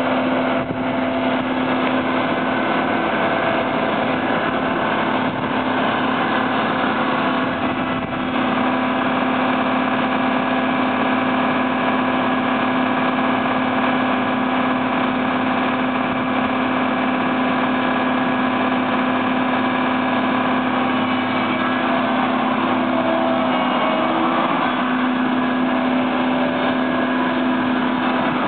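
John Deere 5430i self-propelled sprayer's diesel engine running steadily at low speed while the machine manoeuvres, with an even hum that holds its pitch throughout.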